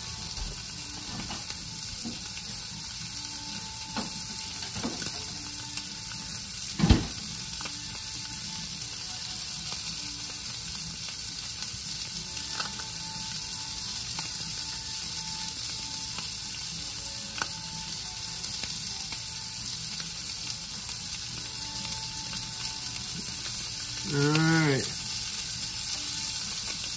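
Snapper fillets frying in garlic butter in a nonstick skillet: a steady sizzle. A single sharp knock comes about a quarter of the way in, and a man's voice sounds briefly near the end.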